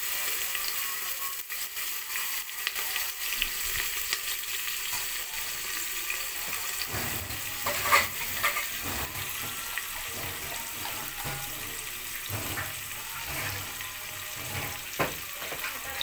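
Chopped onions sizzling steadily in hot oil and butter in a pressure cooker. From about seven seconds in they are stirred and scraped with a spatula, with a sharp knock at about eight seconds.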